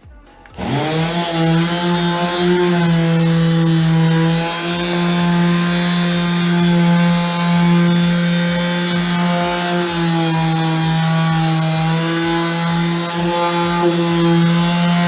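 Electric sander starting up about half a second in, winding up quickly and then running steadily while sanding the truck bed's metal, its pitch dipping briefly a couple of times.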